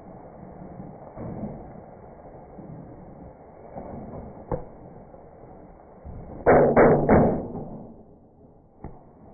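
Three loud bangs on a microwave oven in quick succession about six and a half seconds in, after a couple of lighter knocks, with a small tap near the end.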